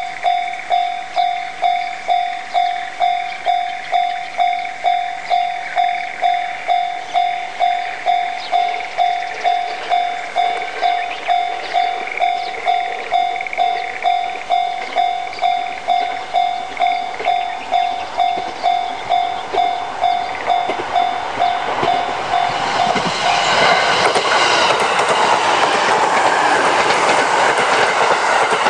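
Japanese level-crossing warning bell ringing in even electronic dings, about 1.7 a second. About 23 seconds in, a train runs over the crossing, its wheels clattering over the rails and drowning out the bell.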